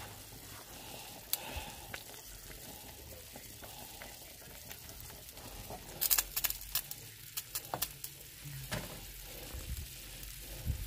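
Water boiling in a pot around a glass measuring cup of melting candle wax, a double boiler giving a steady bubbling sizzle. A quick run of sharp clicks and taps comes about six to eight seconds in.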